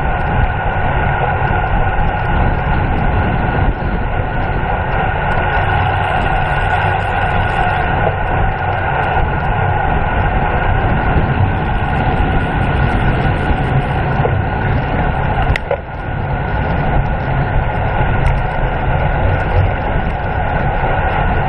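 Steady, loud wind rush and road noise on the microphone of a camera riding on a road racing bicycle at speed, with a steady whine running through it. About two-thirds of the way in the noise briefly dips, with a click.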